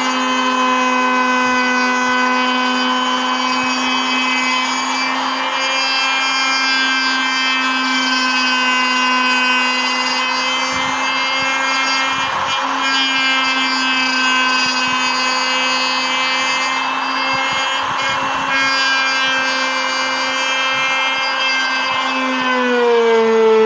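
Hand-held electric router running steadily at high speed while its bit carves a relief pattern into wood: a continuous motor whine over the rasp of the cutting. The pitch dips briefly about halfway and slides down slightly near the end.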